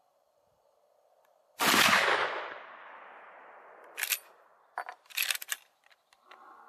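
A single rifle shot from a Model 1894 Winchester-pattern lever-action in .38-55 firing a black-powder cartridge, with a long echoing tail that fades over about two seconds. A few seconds later come several sharp metallic clicks of the lever being worked to eject the spent case and chamber the next round.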